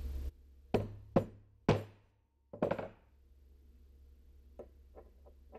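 Four sharp knocks of metal tool parts against the workbench in quick succession, then a few faint clicks near the end.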